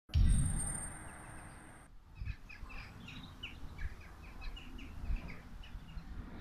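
Small birds chirping in quick, short, repeated notes from about two seconds in, over a steady low outdoor rumble. The rumble is loudest at the very start, with a faint high whine, and fades over the first two seconds.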